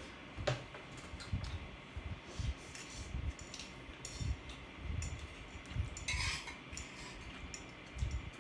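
Eating utensils clicking and clinking against a plate while eating, as a string of irregular separate clicks with soft low knocks between them.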